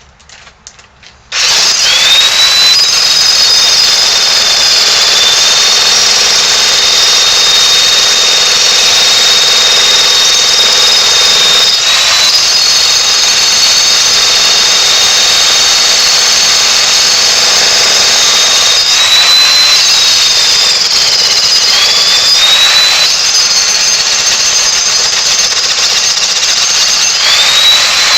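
Jackhammer starting up suddenly about a second in, then running loud and steady with a high whine that dips briefly a few times as the hammering eases and picks up again.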